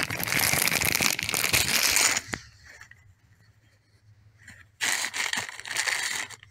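A plastic bag crinkling as it is handled for about two seconds, then a pause. Near the end comes a second burst of rustling and rubbing as hands move over the rifle and its case.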